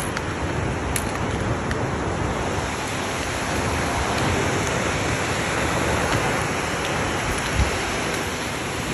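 Steady rush of Amicalola Falls' cascading water, an even hiss with no let-up, with a couple of faint clicks.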